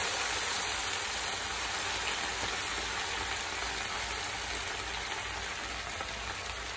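Cooking liquid from pressure-cooked chicken being poured into a very hot pan of coconut oil and browned onions, sizzling and bubbling hard, the sizzle slowly dying down as the liquid heats.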